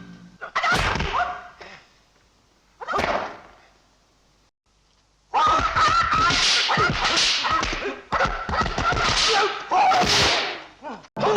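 Kung fu fight sound effects: two swishing strikes, then from about five seconds in a rapid flurry of whooshes and slapping punch hits.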